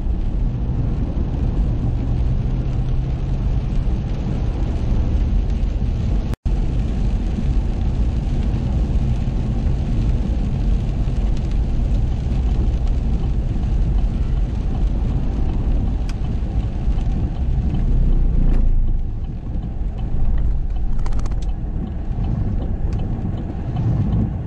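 Steady road and engine noise heard inside a vehicle driving on a wet highway in the rain, dominated by a deep rumble. The sound cuts out for an instant about six seconds in.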